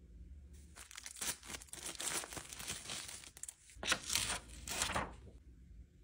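Dry crinkling and rustling noise in irregular crackly bursts, loudest about four seconds in and stopping about five seconds in.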